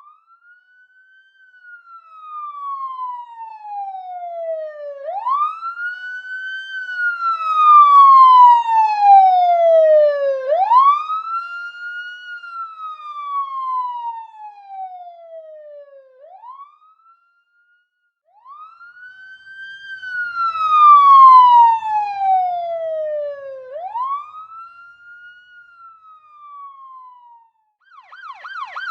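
Police siren in wail mode: a single tone that sweeps up quickly and then falls slowly, each cycle about five seconds long. It comes in two runs with a short break about two-thirds of the way through, and each run grows loud and then fades.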